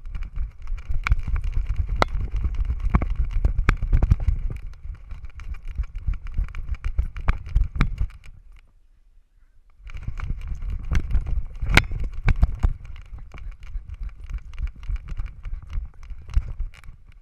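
Handling and wind noise from a GoPro on a harness on a running miniature schnauzer's back: a low rumbling buffet full of rapid clicks and knocks as the camera is jolted with each stride on the grass. It stops for about a second and a half some eight seconds in, then starts again.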